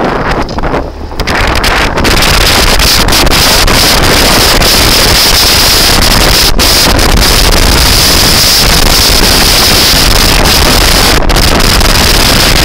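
Loud wind noise battering the microphone of a moving motor scooter, building over the first two seconds and then holding steady.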